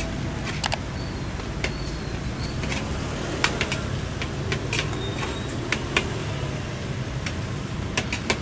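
A metal spatula clanking and scraping against a huge wok at irregular intervals as a large batch of fried rice is stirred. Under it runs a steady low rumble of street traffic.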